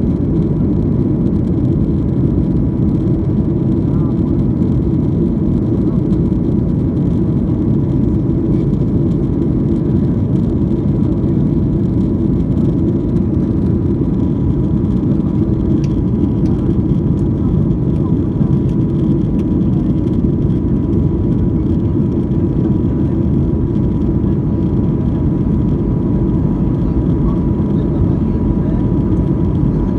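Steady engine and airflow noise inside the cabin of a Boeing 737-800 in its climb after takeoff, its CFM56-7B turbofans and the rushing air making an even, low-heavy noise that does not change. A thin steady tone sits above it.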